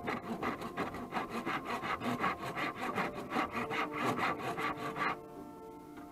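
Hand rasp scraping over carved wood in quick back-and-forth strokes, several a second, rounding a walking stick's snake-shaped body; the strokes stop about five seconds in.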